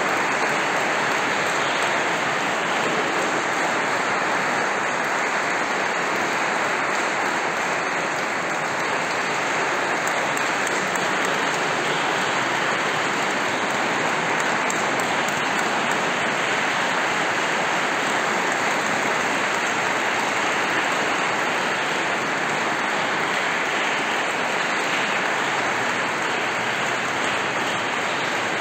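Audience applauding steadily, a dense even clatter of many hands with no music.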